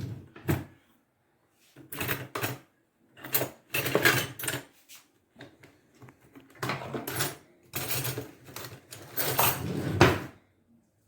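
A spoon stirring cut fruit in a bowl, in a series of short bursts of scraping and knocking against the bowl.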